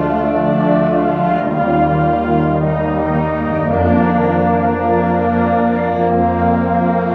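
A high school concert band of flutes, saxophones, trumpets and tubas playing together in a slow passage of long held chords, the harmony shifting every second or so.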